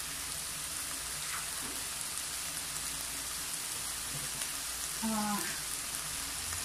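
Cubed pork sizzling steadily in a ceramic-coated pan with a little liquid, a fine even crackle and spatter. A brief voice-like sound about five seconds in.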